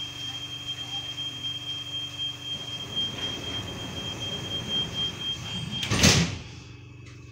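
Copenhagen Metro train's sliding doors shutting with a loud thud about six seconds in, at the moment a steady high-pitched tone stops; the car's low hum runs underneath and drops away after the doors close.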